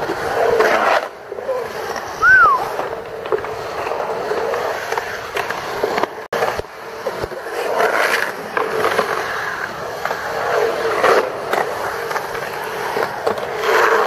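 Skateboard wheels rolling and carving around a concrete bowl, the rolling noise swelling and fading with each pass. A short high tone rises and falls about two seconds in.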